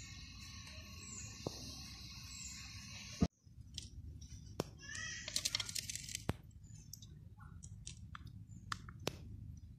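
A steady background with a short high chirp repeating about every second and a half, then, after an abrupt cut, a small knife clicking and scraping as it cleans small anchovies by hand, nipping off heads and guts, with a quick run of rapid clicks a little after the middle.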